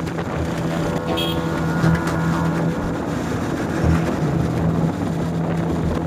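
Motorcycle engine running at a steady cruise, with wind rushing over the onboard camera's microphone.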